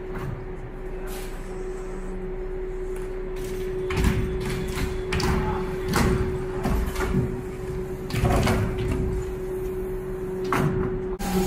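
Aluminium quilting frames of a light-box frame changer being pushed along their rails: a rolling, sliding rumble broken by irregular clunks and knocks as the frames move and stop, over a steady hum.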